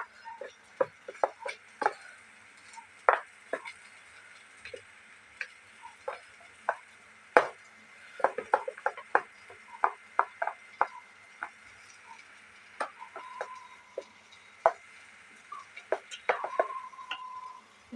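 Masoor lentil paste and egg being beaten in a bowl: irregular wet taps and clicks as the paste is worked against the bowl.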